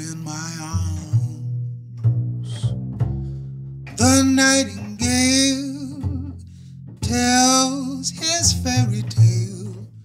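Jazz duo playing an instrumental passage: an acoustic double bass plucked in low notes under sustained, wavering melody notes from a 1929 National Triolian resonator guitar played with a slide.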